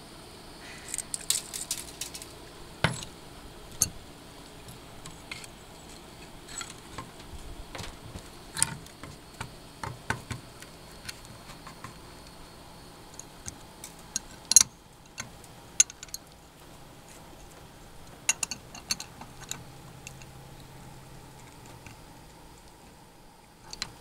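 Irregular small clicks, taps and clinks of hand tools on a rusted shackle and chain hook as the seizing is cut away and adjustable wrenches are fitted to the shackle, with one louder knock about halfway through.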